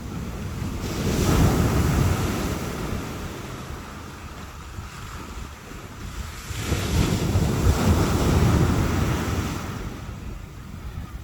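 Sea waves breaking on the shore, two waves swelling up and washing back a few seconds apart, with wind rumbling on the microphone.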